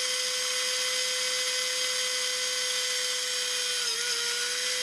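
Tamiya Electric Handy Drill, a small battery-powered hobby drill with a geared-down motor, running at a steady pitch while its 2 mm bit drills through a plastic part. The pitch dips briefly about four seconds in as the bit works through the plastic, then recovers.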